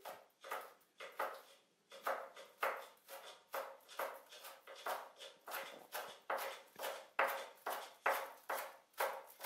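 A Chinese cleaver chopping spring onion greens on a wooden cutting board: an even run of short knocks, about two a second.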